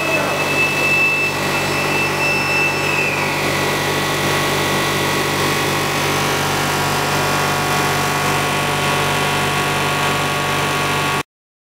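Blown film machine running: a steady mechanical hum and whir from the motors and rollers, with a high whine that drops slightly in pitch about three seconds in. The sound cuts off suddenly near the end.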